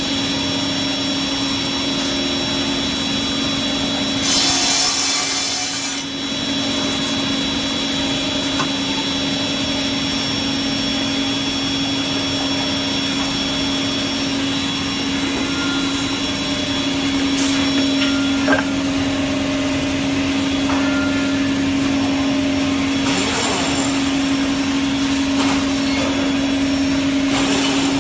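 Woodmaster 1.7 m double-end cut-off saw running, its twin circular-saw motors giving a steady hum. A few louder bursts come about 4 seconds in and again around 23 seconds in, as the blades cut through wooden boards. A single sharp knock comes about 18 seconds in.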